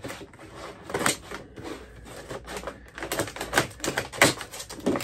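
Plastic blister and cardboard card of a carded action figure being torn and pried open: irregular crackles and clicks, the loudest about four seconds in.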